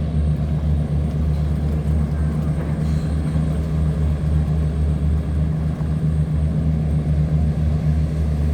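Tugboat's diesel engine running steadily under load while towing cargo barges against the current: a deep, even drone.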